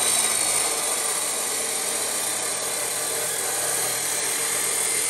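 Ridgid abrasive cut-off chop saw cutting through a steel tube: a steady grinding of the disc in the metal.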